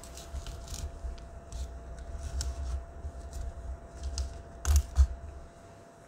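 Cardboard packaging rustling and clicking as a 3D taster edge finder is worked out of its cardboard box insert by hand, with two sharper knocks about five seconds in.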